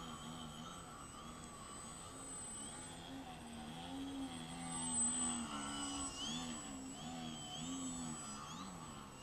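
Electric RC aerobatic plane's E-flite Park 400 brushless motor and propeller buzzing, its pitch rising and falling again and again as the throttle is worked in slow, low flight, loudest about halfway through. A steady thin high whine runs underneath.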